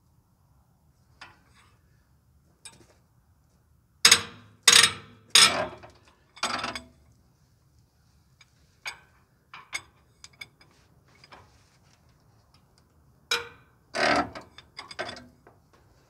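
Sharp metallic knocks and clanks of hand tools against the steel frame of an excavator as the diesel tank's mounting bolts are worked loose. Four loud strikes come about four seconds in, then lighter clicks, then another cluster of knocks near the end.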